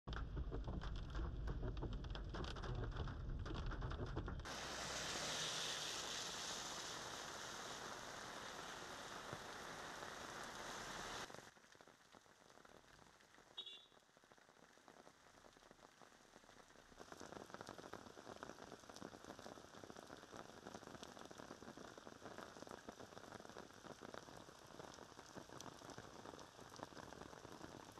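Steady heavy rain hissing and pattering on surfaces, heard across several cut-together shots: louder at first with some low rumble underneath, dropping sharply about eleven seconds in, then picking up again a few seconds later. A brief high-pitched blip sounds about halfway through.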